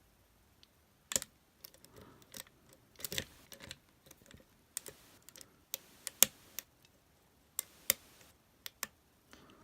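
Lock picks and a tension wrench working in a Master Lock lockout-tagout padlock: irregular sharp metal clicks and short scrapes as the lock is picked.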